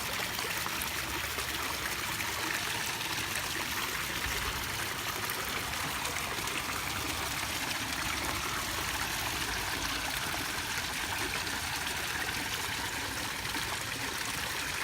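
Water running down a small backyard pond's waterfall: a steady trickle and splash.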